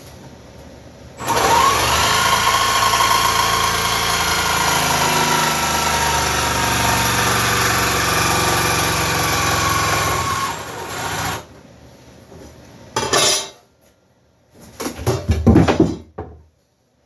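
Power tool motor spinning up about a second in, running steadily through a cut for about nine seconds, then stopping, followed by a few short knocks and clatters.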